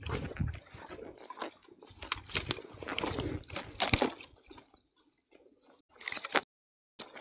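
Footsteps in boots crunching and snapping dry twigs and dead reed stalks on a muddy bank: irregular crackles and snaps with dull footfalls. The sound cuts out briefly near the end.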